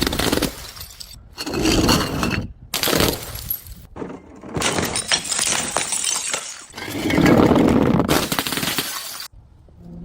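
Glass bottles shattering, in about five separate bursts of breaking glass, each cut off abruptly.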